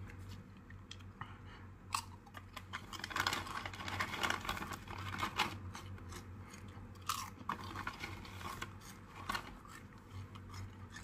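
A person chewing crunchy ghost pepper chips with their mouth close to the microphone: irregular crunches that come thickest a few seconds in, then thin out.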